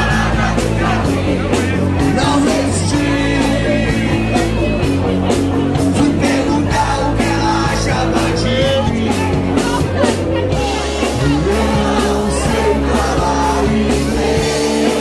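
Live rock band playing: a male singer over electric guitar, electric bass and drums.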